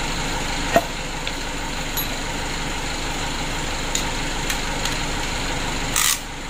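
A steady motor drone under a few light metallic clicks, with a short scraping rush just before the end.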